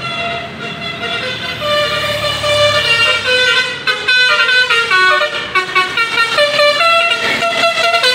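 Tour bus Basuri 'telolet' musical air horn playing a quick tune, its loud notes stepping up and down in pitch several times a second.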